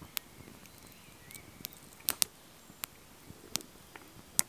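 Wood fire crackling, with sharp, irregular pops: a close pair around the middle and the loudest near the end.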